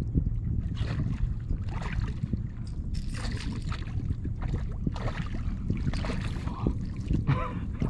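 Wind rumbling on the microphone over small waves lapping at a kayak, with short bursts of splashing as a hooked redfish thrashes at the surface.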